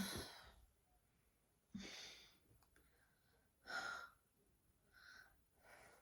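A woman's soft breathing as she dozes off: about five separate breaths and sighs with quiet gaps between them, the first, right at the start, among the loudest.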